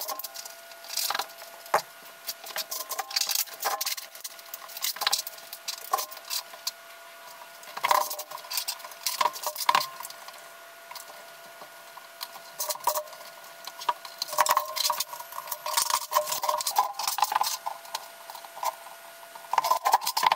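Heating cable being pressed by hand into the studs of a Schluter Ditra Heat uncoupling mat and drawn off its spool: a rapid, irregular run of plastic clicks, taps and scrabbling.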